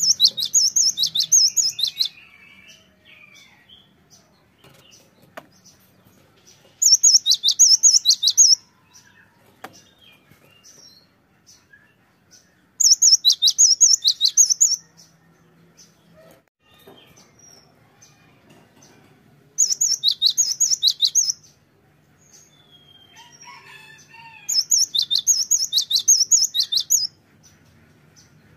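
Cinereous tit (gelatik batu) singing: five bursts, each a quick run of about five high, repeated notes a second lasting around two seconds, coming roughly every six seconds, with soft chirps in between.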